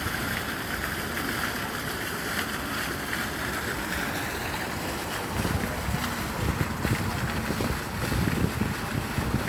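Wind buffeting the microphone over a steady rushing noise, turning gustier with low thumps about halfway through.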